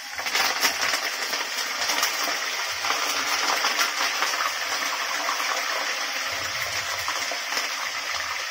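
Curry leaves and slit green chillies frying in hot gingelly oil in a steel kadai for a tempering: a sharp burst of sputtering as the leaves go in, settling into a steady, dense crackling sizzle.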